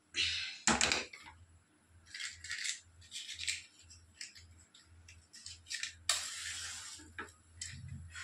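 Clatter of a pressure cooker's metal lid being closed, then a run of small clicks and rattles, and about six seconds in a hiss lasting about a second as the gas stove burner is lit.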